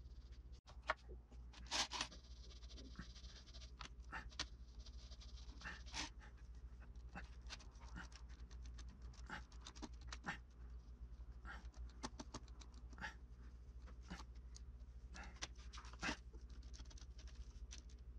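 Faint, irregular scratching and tapping of a small sculpting tool and fingertips working a fur texture into modelling clay, dozens of short strokes at an uneven pace. A steady low hum runs underneath.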